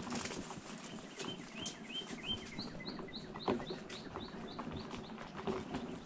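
A wheelchair rolls over a gravel trail, with scattered crunches and knocks and a steady low hum. Through the middle, a songbird sings a quick run of short rising chirps, about five a second, the later ones higher.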